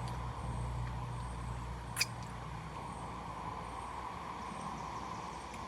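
A person chewing a mouthful of barbecue rib sandwich over a steady low hum that fades after about two seconds, with one sharp click about two seconds in.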